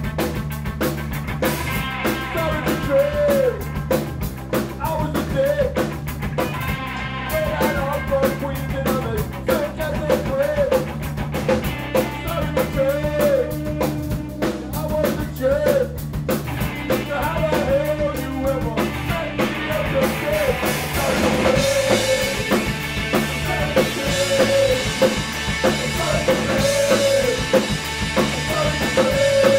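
Live rock band playing: drum kit, electric guitar and bass under a lead vocal sung in short repeated phrases, with the drums filling in harder near the end.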